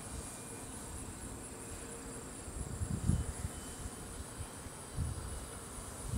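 Steady, high, finely pulsing insect trilling from the field, with low wind rumble on the microphone that gusts about halfway through and again near the end.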